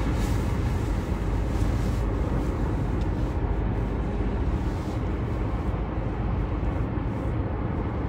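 Steady road noise of a car driving at speed, heard from inside the cabin: tyres on asphalt and the engine, heaviest in the low end.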